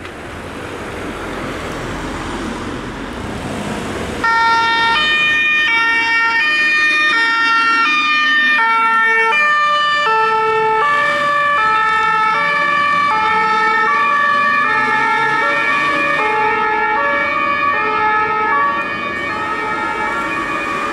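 German fire engines' two-tone sirens (Martinshorn) starting abruptly about four seconds in as the convoy passes. The alternating high and low tones of several vehicles overlap, some sliding lower as they go by. Before that, vehicle engine and road noise rises.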